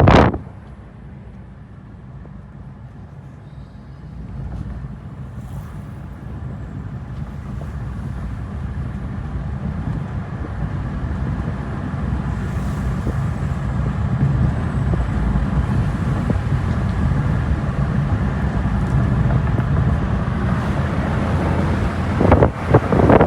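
Car driving on a road: a steady low rumble of road and engine noise that grows gradually louder. Loud wind buffets on the microphone right at the start and again near the end.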